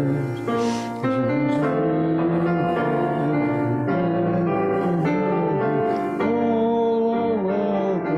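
A hymn played on piano, with the congregation singing along in slow, held notes.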